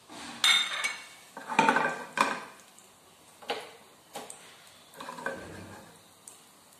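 Mustard seeds spluttering in hot coconut oil in a frying pan during tempering: irregular sharp pops and crackles in a handful of clusters, loudest in the first two seconds and thinning out after, over a faint sizzle.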